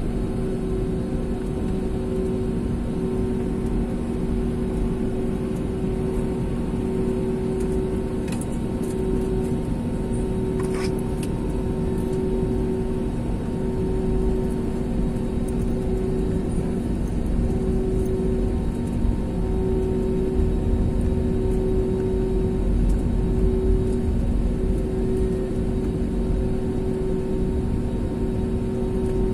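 Steady cabin noise of a jet airliner taxiing: a low engine rumble under two steady hum tones, the higher one swelling and fading at an even pace.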